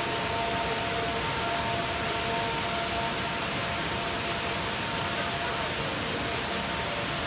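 Waterfall: a steady, even rush of falling water. Faint held tones sound under it early on and fade out about halfway through.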